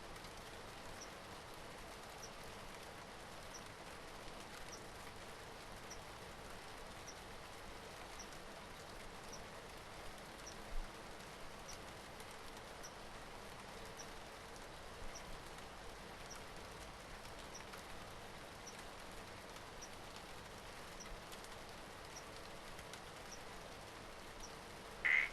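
Steady rain falling in a jungle at night, with a short high chirp repeating a little less than once a second. A single louder call sounds right at the end.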